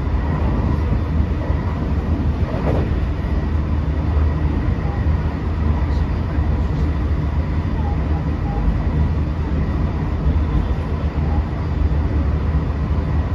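Running noise inside a JR West 225 series 100-subseries motor car at steady speed. A continuous low rumble of wheels and bogies on the rails carries a faint steady whine from the Toshiba IGBT VVVF inverter drive and its traction motors.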